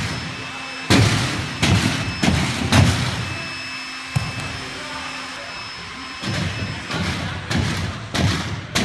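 Repeated thuds of gymnasts taking off and landing on a sprung tumble track and trampoline, with a quieter stretch in the middle and more thuds near the end.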